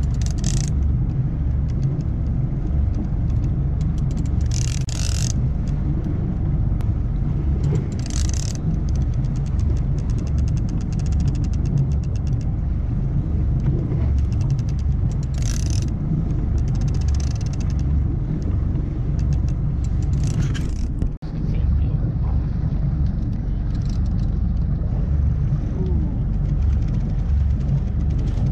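Steady low rumble of the boat's engine, broken every few seconds by a short high whir: the big-game reel being cranked as the rod is pumped to bring up the bluefin tuna. The sound drops out for an instant about two-thirds of the way through.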